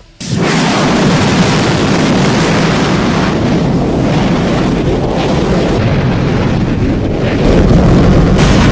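Space Shuttle main engines (three liquid-fuel RS-25s) igniting on the launch pad: a sudden start into a loud, steady rush of rocket noise. The deep rumble grows stronger near the end.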